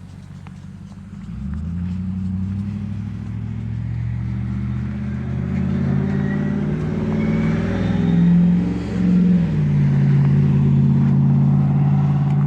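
Small quadcopter drone's propellers humming, starting up about a second in, several motor tones shifting pitch separately as it manoeuvres.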